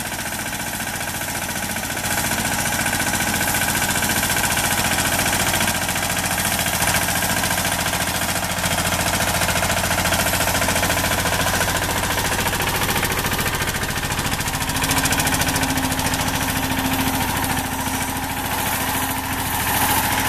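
Mini tractor engine running steadily with a fast, even chugging as the tractor moves slowly along, driving its mounted spray pump. It gets a little louder about two seconds in.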